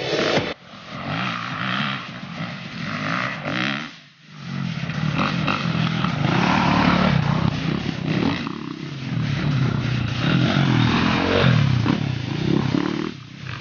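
Enduro dirt bike engine revving as the bike rides past close by, its note rising and falling with the throttle. After a brief lull about four seconds in, it grows loud.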